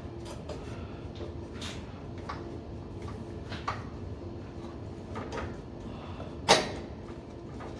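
Scattered light knocks and clicks over a steady faint hum, with one sharper, louder knock about six and a half seconds in.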